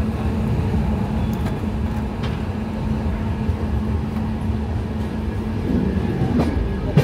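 Passenger train coach running on the track, heard from the open doorway: a steady rumble of the wheels with a low hum and a few light clicks over the rail joints, and one sharp knock near the end.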